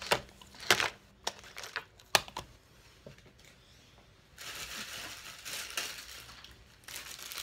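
A few sharp clicks and knocks of small items being handled, the loudest about two seconds in. Then packaging rustles and crinkles from a little past halfway, with a short break near the end.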